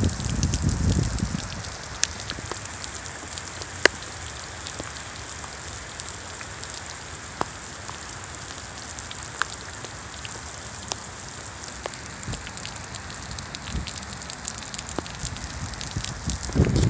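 Heavy rain falling steadily as a hiss, with scattered sharp ticks of single drops. A low rumble swells in the first second or so and again near the end.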